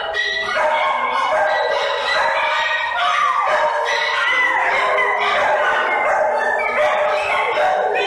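Dogs howling, first a Siberian husky and then a puppy: long wavering howls that slide up and down in pitch, running on one into the next.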